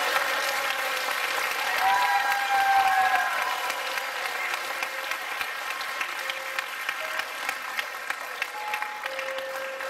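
Audience applauding: many hands clapping together, with a voice briefly rising over the clapping about two to three seconds in. The applause then eases off slowly.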